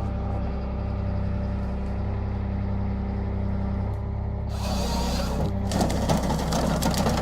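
A heavy machine's engine running steadily. About four and a half seconds in it is joined by two bursts of harsh, hissing noise, each about a second long.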